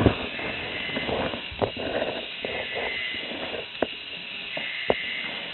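Small battery motor and plastic gears of a K'nex walking dinosaur model running with a steady whir, broken by a few sharp plastic clicks as its parts move.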